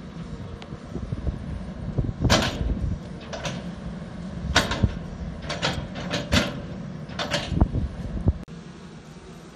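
Volvo long-reach excavator's diesel engine running steadily while its bucket scrapes along the soil slope, making a string of short, harsh scrapes from about two seconds in. The scraping stops shortly before the end.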